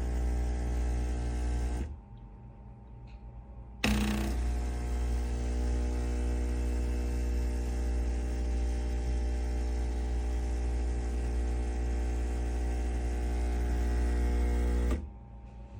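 QJA espresso machine's pump buzzing with a steady, loud hum. It cuts out for about two seconds near the start, then runs again for about eleven seconds. It is running but no coffee comes out.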